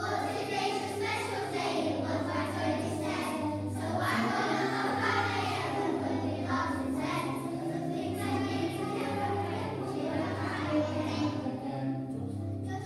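A class of young children singing a song together as a choir, over an instrumental accompaniment with steady low notes.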